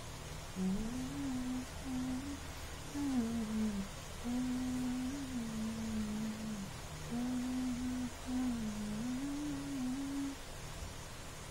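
A person humming a slow tune in a low voice, in phrases of held notes that rise and fall, with a short break about four seconds in; the humming stops about ten seconds in.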